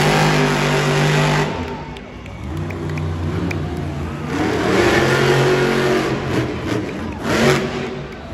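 Monster truck's supercharged V8 engine revving hard in surges as the truck drives and wheelies on the arena dirt. It is loud at the start, surges again about halfway through, and gives a short sharp blip near the end.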